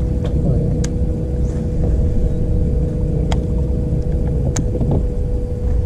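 A bass boat's bow-mounted electric trolling motor hums steadily under a low, uneven rumble of wind on the microphone, with a few sharp clicks scattered through.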